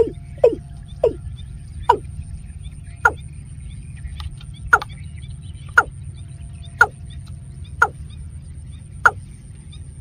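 Watercock calling: a run of short, sharp call notes, about ten in all. They come about twice a second at first and slow to about one a second.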